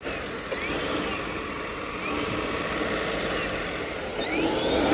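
Citroën C5 Aircross 1.2 hybrid petrol engine running, with a high whistling whine that rises and falls several times, most strongly a little after four seconds. It is described as a strange sound that may come from the turbo.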